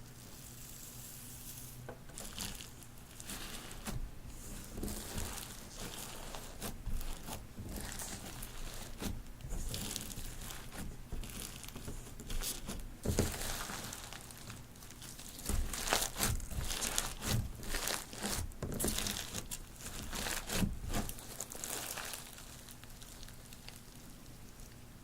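Hands squeezing and kneading glossy slime mixed with foam beads: irregular crunching and crackling, quieter for the first couple of seconds and the last three.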